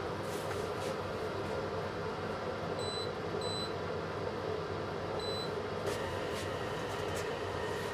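Convection oven's control panel beeping three times as its buttons are pressed: two short beeps close together, then a third about two seconds later. A steady machine hum and a few faint knocks run underneath.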